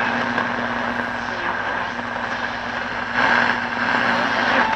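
Shortwave static and band noise from a Zenith G500 Trans-Oceanic tube radio's speaker as its dial is tuned between stations, with a faint low steady tone through the first part.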